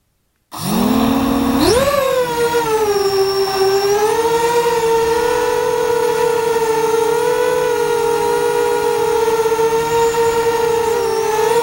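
Eachine Falcon 210 quadcopter's brushless motors and propellers starting up: about half a second in they spin at a low idle pitch, then throttle up sharply a little over a second later and hold a steady, slightly wavering whine at hover.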